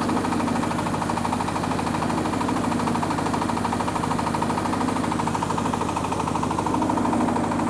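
Small engine of a rice-milling machine running steadily at working speed, with a fast, even beat.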